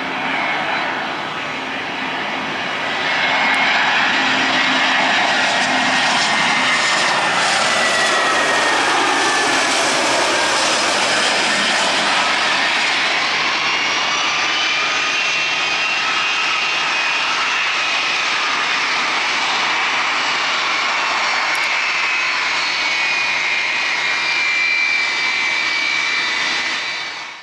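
Jet engines of an Airbus A320-214, CFM56 turbofans, running loud and steady as the airliner lands and rolls out. Their whine dips in pitch about midway, then rises again.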